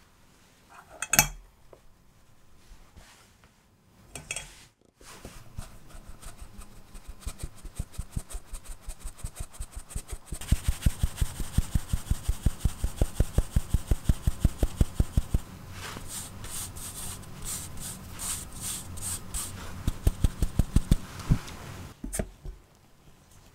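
Flour being sifted through a fine-mesh stainless steel sieve over a glass bowl: the sieve is tapped and shaken in a quick, even run of taps and rattling, several a second, loudest in the middle and lighter and brushier later. A single clink of metal on glass about a second in.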